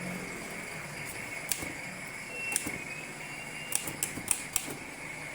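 Keys of a manual typewriter struck a handful of times, giving sharp, irregular clacks that come closer together in the second half.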